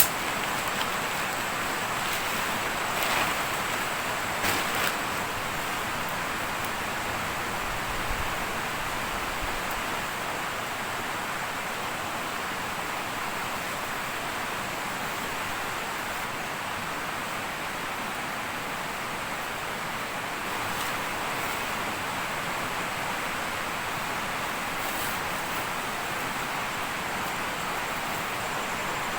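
Steady rush of flowing water, with a thin high steady tone above it and a few soft knocks about three and four and a half seconds in.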